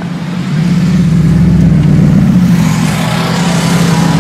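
Mercedes-Benz SLS AMG's V8 running at low revs as the car rolls slowly by, a steady deep exhaust note that gets louder about half a second in and then holds.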